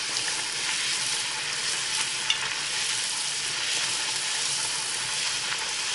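Urad dal puri deep-frying in hot oil, a steady sizzle, as a slotted steel spoon presses it under the oil to make it puff. One light click about two seconds in.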